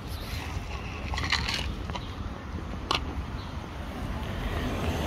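Dry cat kibble poured from a plastic cup onto brick paving, a short rattling spill about a second in. A single sharp click follows near three seconds, over a steady low rumble.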